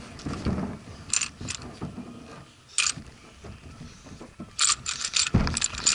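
Scattered clicks, taps and light scrapes of small objects and a plastic pot being handled on a trampoline mat close to the microphone, with a dull thump on the mat about five seconds in.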